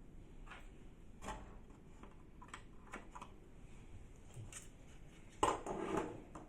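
Parts of an inkjet printer being handled during disassembly: scattered light clicks and taps of plastic and metal, with a louder rattling clatter about five and a half seconds in.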